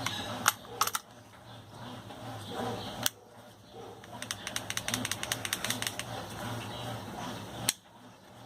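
Sharp metallic clicks from a full-metal airsoft gun being handled: a few single clicks and, in the middle, a fast run of clicks lasting about two seconds.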